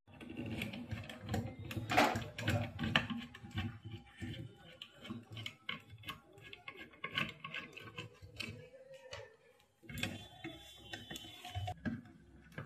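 Screwdriver undoing screws on an inverter welding machine's housing: a run of irregular light clicks and scrapes.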